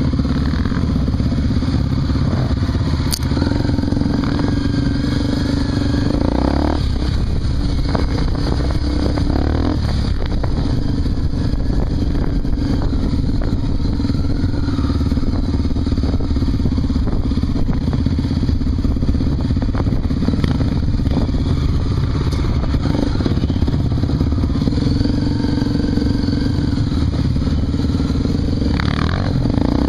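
Honda Tornado 250's single-cylinder four-stroke engine running on a dirt trail, its pitch shifting as the throttle opens and closes, with a rise and fall near the end.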